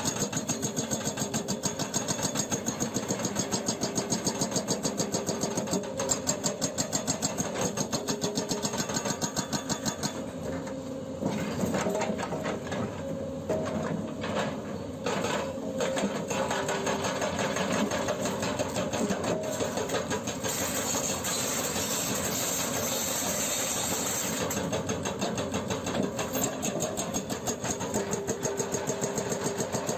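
Hyundai 210LC-7 excavator's hydraulic hammer pounding rock in a rapid, even train of blows, stopping for a while about ten seconds in while the excavator's diesel engine keeps running, then hammering again near the end.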